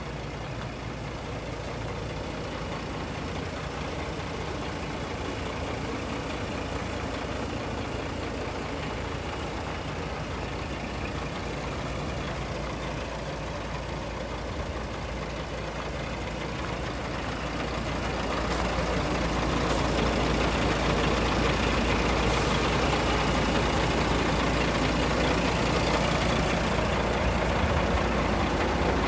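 Scania R420 truck's 12-litre straight-six diesel idling steadily, growing louder about two-thirds of the way in.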